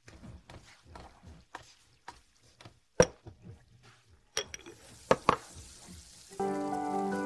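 Kitchen sounds: a run of light knocks and clicks like chopping, with one sharp knock about three seconds in. Then a black clay pot's lid is lifted and set down with a few clinks. Music starts near the end.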